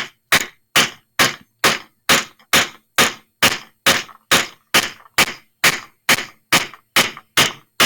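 Hammer striking a 16-gauge wire clasp flat on a bench block in steady blows, a little over two a second, each with a short ringing rattle from shells shaking on the table.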